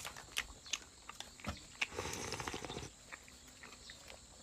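A person eating chicken: wet chewing with short lip-smacking clicks, and a denser stretch of chewing about two seconds in that lasts about a second.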